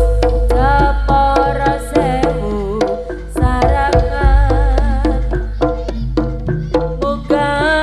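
Live jaranan music from a Javanese ensemble: quick, steady hand-drum strokes under a wavering melody line, over a deep sustained bass.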